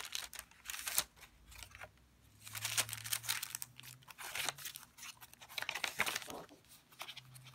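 Paper pages of a handmade junk journal rustling and crinkling in several bouts as a tucked-in card is handled and a page is turned.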